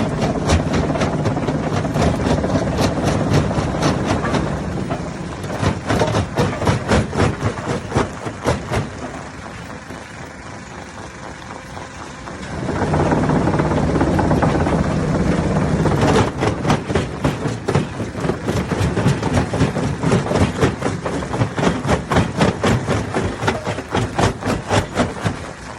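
Hammer stone crusher working, rocks cracking and clattering in rapid, irregular knocks over the low drone of the machine. The drone is strongest near the start and again about halfway through.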